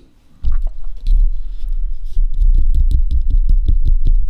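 Microphone handling noise close on the mic: a loud low rumble with a rapid run of scraping clicks, starting about half a second in.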